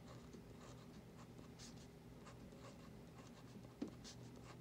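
Faint scratching of a ballpoint pen writing numbers on paper in short, irregular strokes, with one small tap about four seconds in.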